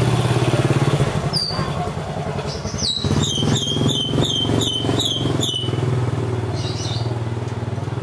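An engine running steadily with a low drone. About three seconds in comes a quick, even run of about eight high chirps.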